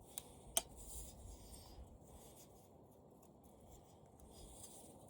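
Two small sharp clicks in the first second, then faint scraping and rubbing as parts of a disassembled CRT TV are handled.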